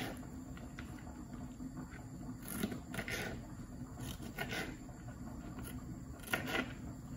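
Kitchen knife cutting tomatoes into chunks on a plastic cutting board: soft slicing with a few scattered taps of the blade reaching the board.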